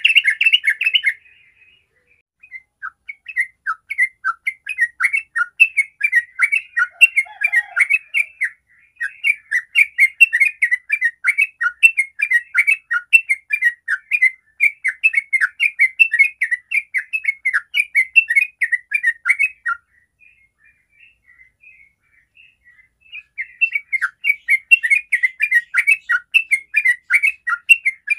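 Yellow-vented bulbul singing a fast, rolling run of short chattering notes (the long "ropel" song that bird keepers prize), unbroken for most of the time, with a pause of a few seconds before it starts up again near the end.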